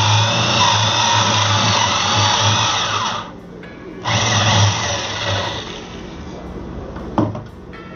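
A woodworking power tool runs in two bursts: about three seconds, then about a second and a half after a short pause. A single sharp knock comes near the end.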